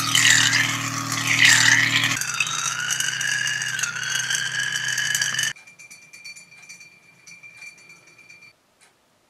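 Small electric motor under a glass vase spinning water into a vortex: a rattling run with a low hum and a wavering whine. The hum drops out about two seconds in and the loud part stops abruptly about five and a half seconds in, leaving faint clicks and ticks.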